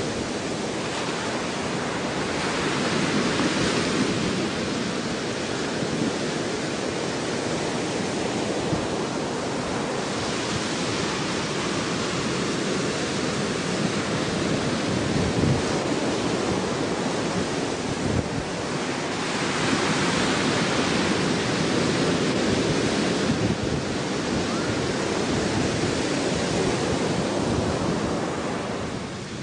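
Surf and wind: a steady rushing noise that swells every several seconds, like waves washing in.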